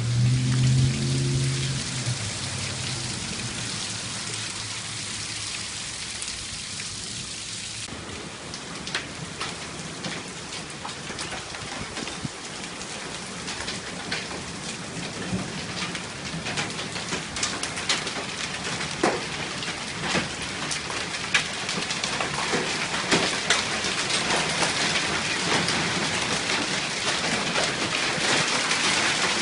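Hail and rain pelting down, with many sharp individual hailstone impacts from about eight seconds in that grow denser and louder toward the end. A brief low voice sounds at the very start.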